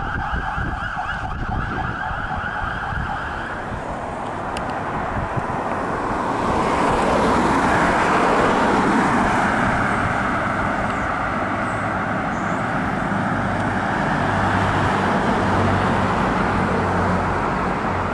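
Electronic siren on a fire department Dodge Ram 2500 pickup sounding a fast warbling yelp, fading out about three seconds in as the truck pulls away. Then passing road traffic, tyres and car engines, loudest around the middle.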